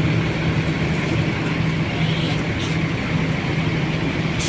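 Diesel engine of a large intercity coach running steadily at low speed as the bus pulls out and turns, a constant low drone. A short sharp click near the end.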